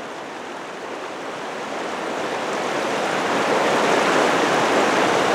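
Running creek water, a steady rushing hiss that grows louder over the first few seconds and then holds.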